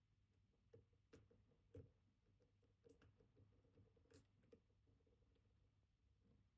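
Near silence, broken by faint, scattered small ticks and clicks of a dimple pick working the spring-loaded pins of a Kaba Titan Combi dimple lock under tension.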